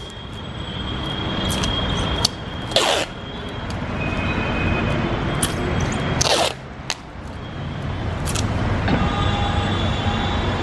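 Street traffic rumbling steadily, broken by two short hissing bursts and a few sharp clicks; near the end a car horn starts to sound.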